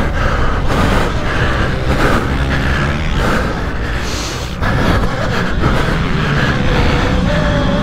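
Small pit bike engines revving up and down as the bikes ride the track, with a brief dip a little past halfway.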